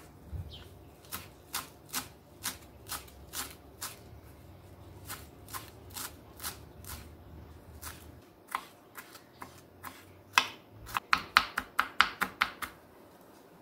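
Kitchen knife chopping cilantro on a wooden cutting board, about two sharp knocks a second. Near the end the chopping turns faster and louder as a green chili is chopped.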